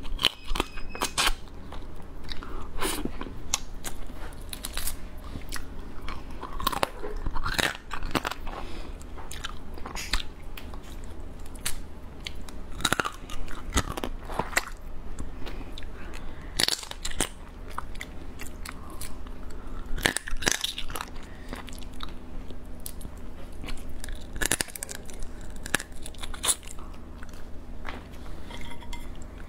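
A person biting, chewing and cracking the shell of a soy-marinated crab close to the microphone: irregular sharp crunches and cracks with chewing between them.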